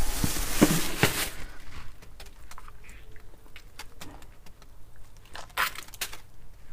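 Hands working the crop of a freshly plucked chicken through its neck skin to squeeze it empty: a dense rubbing, scraping noise with a few sharp clicks over about the first second and a half, then scattered small clicks and handling noises, with one short rub about five and a half seconds in.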